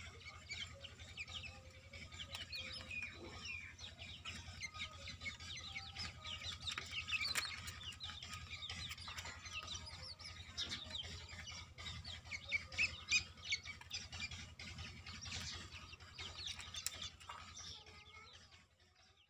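A brood of black francolin chicks peeping without pause: many high, short, falling cheeps overlapping, over a steady low hum. The peeping fades out near the end.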